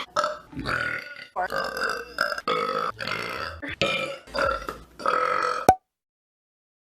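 A woman burping over and over, a quick string of loud, throaty burps of about half a second each. It cuts off suddenly about a second before the end.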